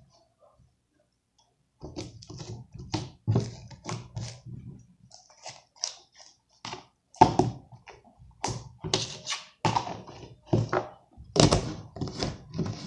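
A run of irregular thunks, taps and clicks from handling slime and its container while the leftover slime is worked out, starting about two seconds in and getting busier and louder in the second half.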